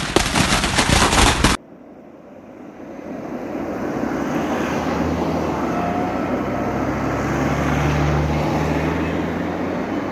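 Fireworks stock exploding in a burning factory: a loud, rapid crackle of pops that cuts off about a second and a half in. A steady low rumble with a droning hum then builds and holds.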